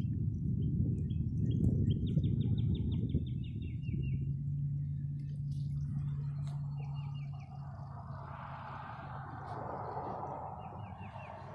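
Small birds chirping in short rapid trills, several times over, above a low outdoor rumble that is strongest in the first half. Later a soft rushing hiss swells and fades.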